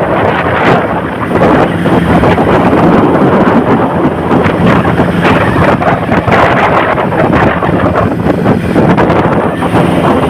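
Wind buffeting the microphone on a moving boat, with the boat's engine running steadily underneath as a low hum.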